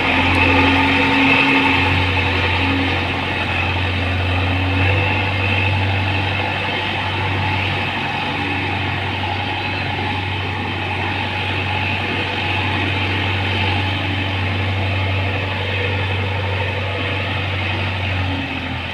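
JCB 3DX backhoe loader's diesel engine running steadily with a low drone, which drops away near the end.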